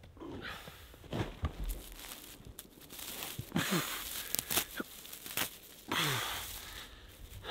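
Net wrap on a round hay bale being cut with a knife and torn away, dry hay rustling and crunching in short, irregular bursts.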